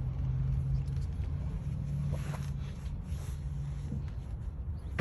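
Truck engine idling: a steady low hum and rumble, with no horn sounding.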